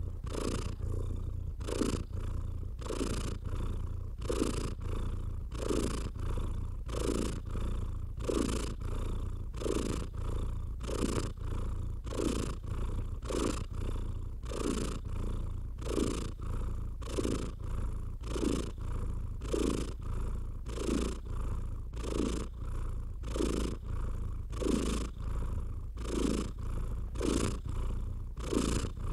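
Domestic cat purring, a steady low rumble that pulses evenly with the cat's breathing about twice a second.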